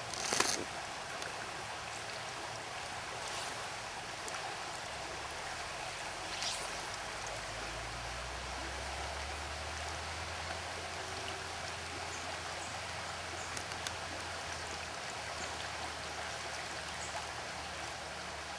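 Shallow river water flowing steadily around a wading angler: an even rush of stream noise, with a brief louder sound just at the start.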